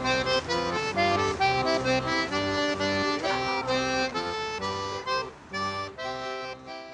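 Instrumental music: a melody over alternating bass notes, stopping abruptly at the end.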